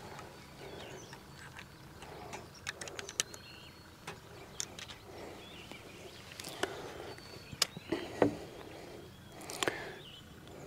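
Scattered light clicks and taps of fishing tackle being handled on a boat (rod, line and a steel circle hook), over quiet open-air ambience with faint bird calls.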